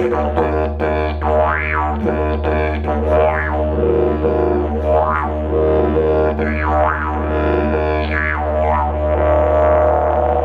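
Wooden didgeridoo in D sharp droning low and unbroken, the player's mouth and tongue shaping the tone into repeated sweeps that brighten and darken, about a dozen times.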